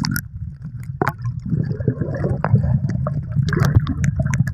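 Muffled underwater sound from a microphone submerged in seawater: a low, steady rumble of moving water with gurgling and scattered sharp clicks.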